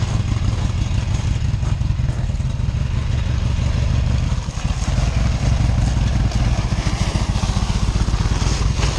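Harley-Davidson Sportster's V-twin engine running steadily with an even low firing beat, dipping briefly about halfway through.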